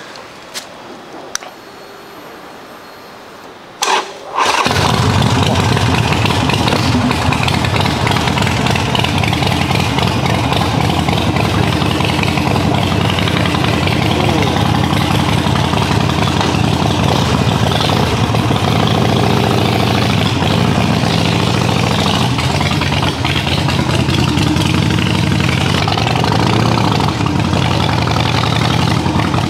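Harley-Davidson Forty-Eight's V-twin, fitted with a Vance & Hines exhaust, started after a few clicks: it catches about four seconds in and then runs loud and steady as the bike pulls away.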